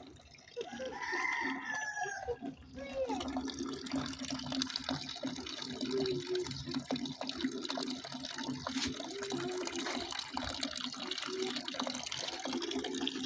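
A rooster crows once, starting about half a second in, with a pitch that rises and then falls. From about three seconds on there is a steady hiss over a low hum.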